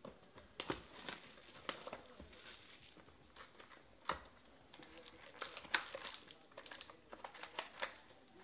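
A cardboard trading-card box being opened by hand and its foil-wrapped card packs pulled out, with irregular crinkling and rustling.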